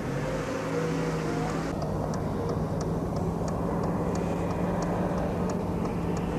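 Vehicle engine running steadily at low speed, a slow crawl. From about two seconds in, a faint regular ticking comes in, about two ticks a second.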